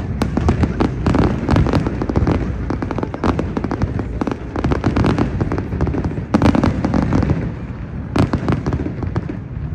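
Aerial fireworks bursting in rapid succession: many overlapping pops and crackles over a continuous low rumble of booms, with louder bangs about two-thirds of the way in and again near the end.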